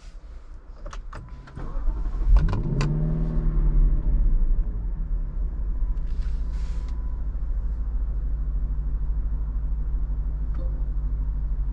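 Lexus LC500's 5.0-litre naturally aspirated V8 starting: a few clicks, then the engine catches about two seconds in with a rev flare that rises and falls. It then settles into a steady idle.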